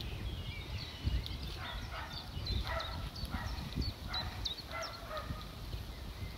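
Small birds chirping in short, quick calls, over a low rumble of wind on the microphone and intermittent rustling.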